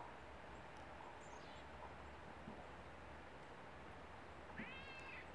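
Faint steady background hiss with a few thin, high bird chirps about a second in. Near the end comes a single short pitched animal call, under a second long, rising and then falling away.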